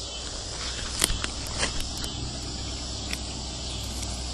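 Steady high chorus of crickets and other insects over a low steady rumble, with a few sharp knocks scattered through it.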